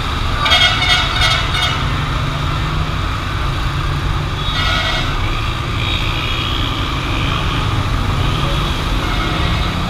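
Busy city road traffic: a steady low rumble of engines and tyres, with short horn beeps about half a second in and again around five seconds in.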